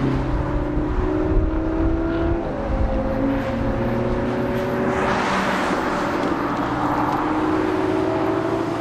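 Car engines running steadily at speed, their pitch drifting slowly and dropping once a couple of seconds in. A swell of wind and tyre rush comes a little past the middle.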